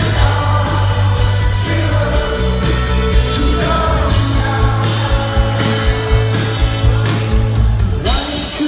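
Live rock band playing, with vocals over a steady bass line and drums. The bass and drums drop out about eight seconds in.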